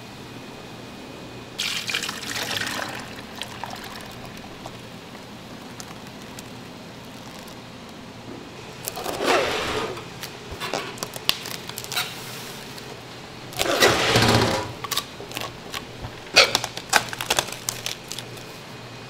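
Liquid ice cream base poured from a bowl into a stainless steel pan, then plastic cling wrap pulled off the roll and stretched over the pans in several short noisy bursts, with light sharp clicks near the end.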